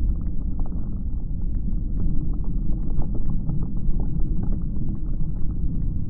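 Overcharged 3S 3P lithium-polymer battery pack, with a puffed cell, burning in thermal runaway: a steady deep rumble with scattered crackles and pops.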